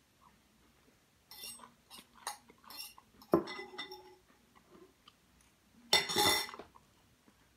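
Metal fork clinking and scraping against a bowl in a run of quick strokes as the last of a salad is gathered, with one sharp knock partway through. A louder scrape lasting about half a second comes near the end.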